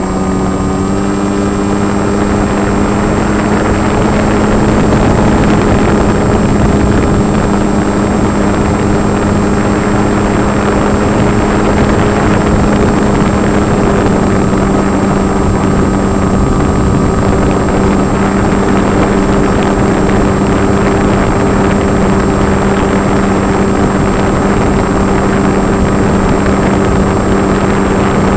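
Electric brushless motor and propeller of an RC foam plane buzzing steadily at a nearly constant pitch, heard from a camera mounted on the plane, with wind rushing over the microphone.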